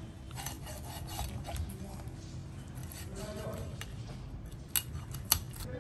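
Cleaver blade scraping and cutting into the thick skin and flesh of a porcupine pufferfish on a plastic cutting board: a run of short rasping strokes, with two sharp clicks near the end.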